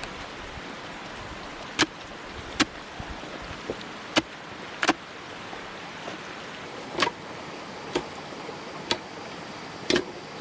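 A series of sharp knocks, about eight in all, coming irregularly roughly once a second over a steady rushing background.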